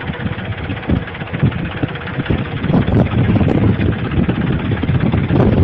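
Tractor diesel engine running as it drives along, with wind buffeting the microphone; the noise gets louder about halfway through.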